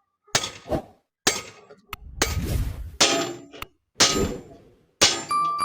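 A series of hammer blows on steel: sharp metallic clangs, some left ringing, roughly one to two a second, broken by abrupt cuts between short clips.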